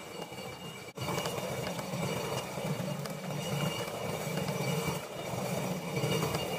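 Hand-turned stone quern grinding rice: the upper millstone turning on the lower stone with a steady grinding rumble. There is a brief break about a second in, after which it runs louder.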